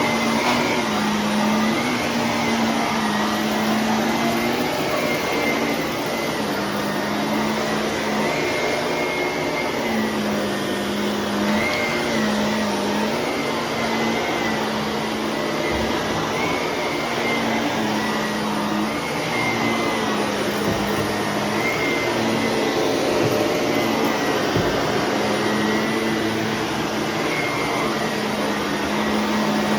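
Shark vacuum cleaner running steadily: a motor hum with a higher whine over airflow noise, dipping briefly in pitch now and then.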